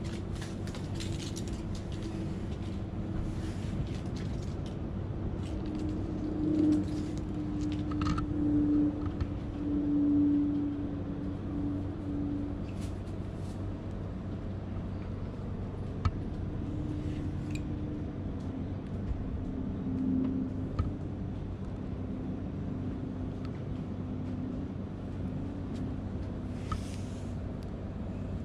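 A steady low engine drone whose tone wavers slightly in pitch and swells briefly several seconds in, with a few faint clicks.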